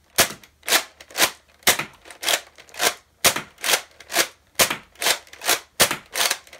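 Plastic Nerf blaster mechanism worked by hand: a short, sharp plastic clack repeated steadily about twice a second.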